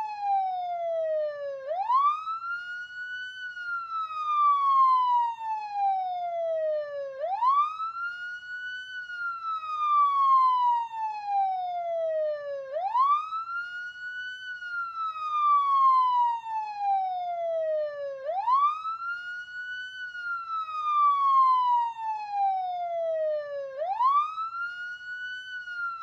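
Police siren wailing in a slow repeating cycle: each cycle a quick rise in pitch followed by a longer, gradual fall, coming round about every five and a half seconds, five times over.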